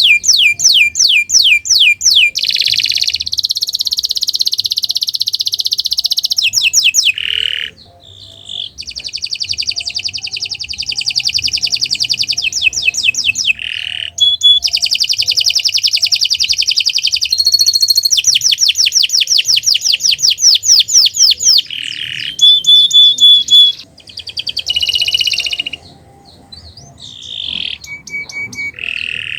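Domestic canary singing a long, loud song of rapid trills and rolls, fast repeated notes alternating with buzzy sustained phrases, broken by brief pauses.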